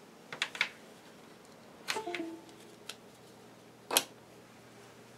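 Sharp plastic clicks and handling as an SD card is pulled out of a computer card reader: a few clicks about half a second in, a cluster with a brief falling squeak around two seconds, and the loudest click about four seconds in, over a low steady hum.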